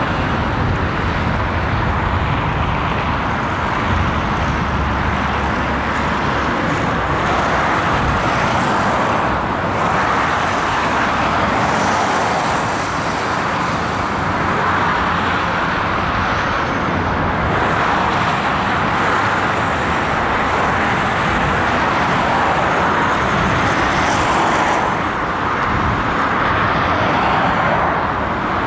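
Steady motor and vehicle noise: an even rushing hiss over a low rumble, swelling and easing every few seconds.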